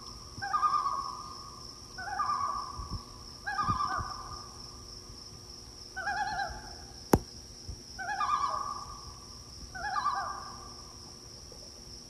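Whip-poor-will singing its repeated 'whip-poor-will' song at night, six calls at short, fairly even intervals, over a steady high-pitched insect-like drone. A single sharp click sounds a little past halfway.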